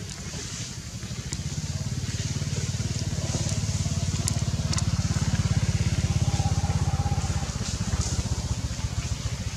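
An engine running with a fast, even low pulse, growing louder to a peak about six seconds in and then fading. A few short high clicks sound over it.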